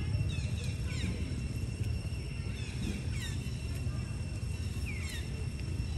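Outdoor ambience: a steady low rumble with a thin, steady high whine, and short high-pitched chirps that fall in pitch, a few near the start, a couple around three seconds in and one or two near five seconds in.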